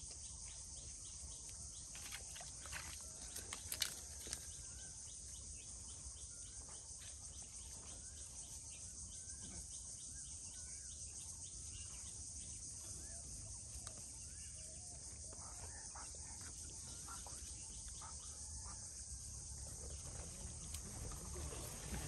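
Steady high-pitched chorus of insects over a low rumble, with a sharp click about four seconds in and a few faint chirps later on.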